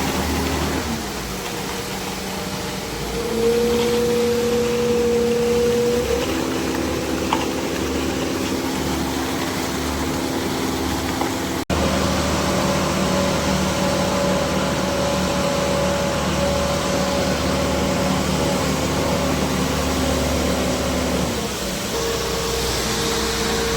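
Diesel engine of an Ajax self-loading concrete mixer running steadily, its pitch stepping up and down several times as the engine speed changes.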